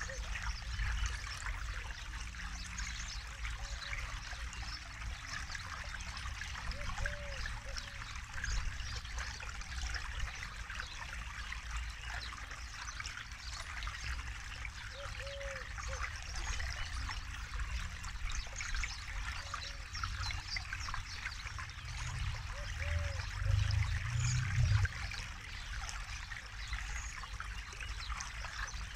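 Forest river flowing over stones, a steady babbling and trickling rush of water. A faint short low note recurs every few seconds, and a low rumble swells briefly about three quarters of the way through.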